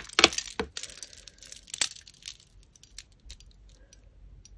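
Strung beads and costume jewellery clicking and clinking against each other as they are picked up and handled: a scattering of short clicks, the sharpest a little under two seconds in, thinning to faint ticks.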